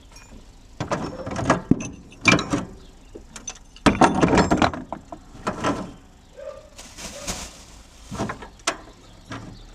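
Irregular metallic knocks, clinks and rattles of hand tools and loose bolts being handled while the body panels are unbolted.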